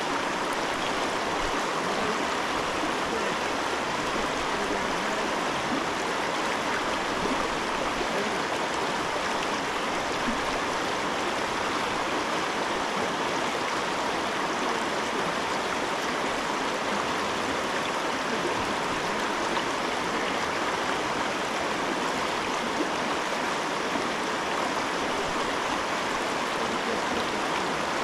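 River current running in an even, steady rush of water.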